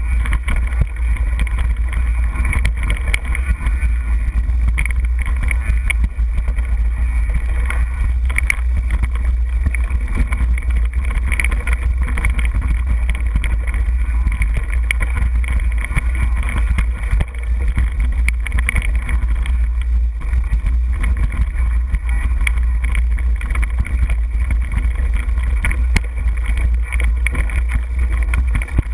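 Trek Superfly 29er mountain bike rolling over a rocky dirt trail: a constant low rumble of wind and vibration on the action camera's microphone, with frequent small clicks and rattles from the tyres and bike over the stones.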